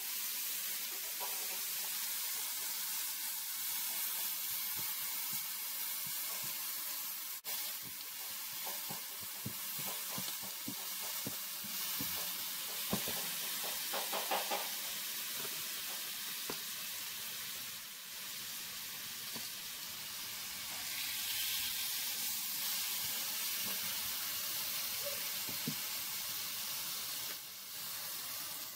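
Chopped marinated beef skirt sizzling on a hot nonstick electric griddle, set at about 375–400°F: a steady hiss. A few short clicks come from the tongs turning the meat about halfway through.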